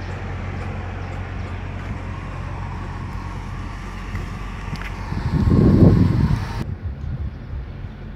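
Heavy diesel truck engine running steadily with a low, even hum. About five seconds in a louder rumble swells and fades, then the sound drops abruptly to a quieter background.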